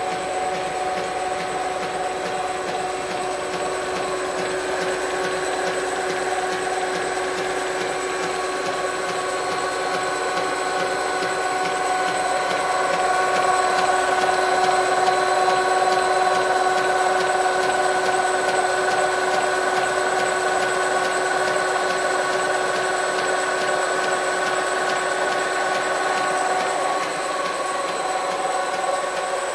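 1957 CVA toolroom lathe running under power from its 4 HP three-phase motor on a VFD: a steady mechanical whine with several held tones, and a regular clunking from the drive belt, which is coming apart at its join. It gets somewhat louder through the middle.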